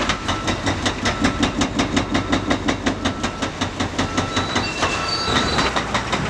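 Excavator-mounted hydraulic breaker hammering the concrete bridge deck in a fast, even rhythm of about eight blows a second. The hammering thins out near the end.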